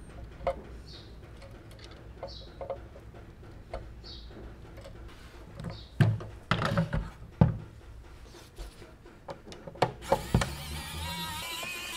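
Handling a metal die-cast model truck on a hard workbench: small clicks and taps, then several louder knocks between about six and seven and a half seconds in as the model is picked up and laid on its side. About ten seconds in, a small handheld power tool starts up with a steady whir.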